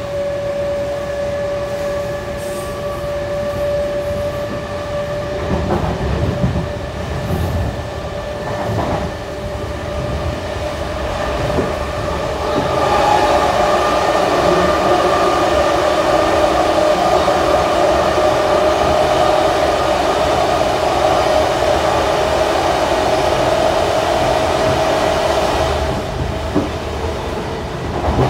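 Inside a heritage Sydney S set double-deck electric train pulling out: a steady hum with a few low thuds in the first half. About halfway in, the running noise gets louder, with a whine that rises slowly in pitch as the train gathers speed.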